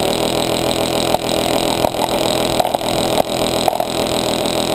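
Airsoft minigun firing one sustained burst: a loud, steady, rapid buzz of BBs fired from its spinning barrel cluster. The gun runs on compressed air.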